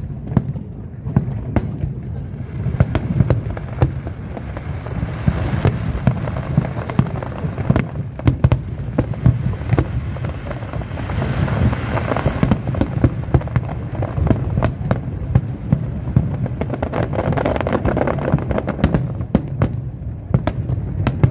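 Aerial fireworks display going off without pause: a dense run of sharp bangs and crackles, many a second, over a continuous low rumble of bursting shells.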